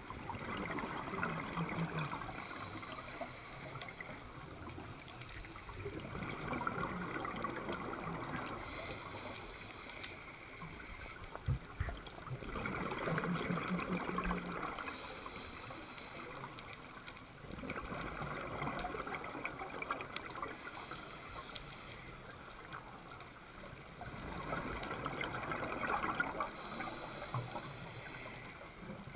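A scuba diver breathing through a regulator, heard underwater: a burst of gurgling exhaled bubbles about every five to six seconds, each lasting two to three seconds, with quieter hiss in between.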